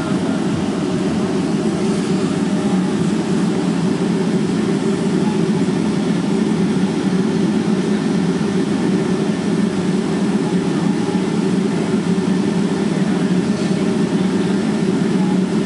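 Steady low cabin hum inside a Boeing 757-200 airliner as it taxis, its jet engines running at low power.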